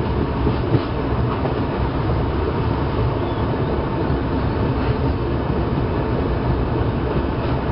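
Shatabdi Express coach running at speed, heard from inside an air-conditioned chair car: a steady low rumble of wheels on track, with a few faint clicks.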